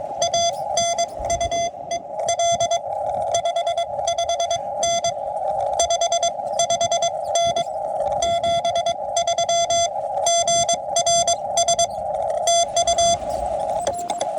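Morse code (CW) heard through a QRP Labs QMX transceiver's narrow CW filter: a single mid-pitched tone keyed on and off in dots and dashes within a band of hissing receiver noise.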